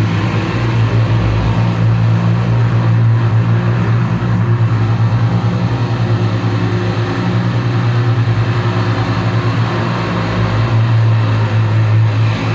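Wall of heavily distorted electric guitar drone and feedback through a PA: a loud, sustained low drone thick with overtones, pulsing in a fast ripple.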